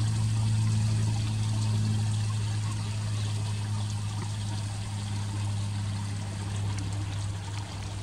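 Backyard pond water feature trickling steadily, over a steady low hum.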